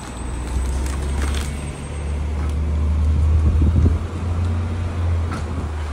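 City street traffic noise: a steady low rumble of vehicles, with a few faint ticks.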